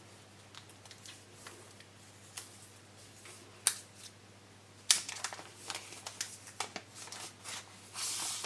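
Phone packaging being handled: a cardboard box and plastic wrapping give small clicks, taps and rustles, with two sharper clicks around the middle and a brief scraping rustle near the end as the phone comes out of its box and is unwrapped.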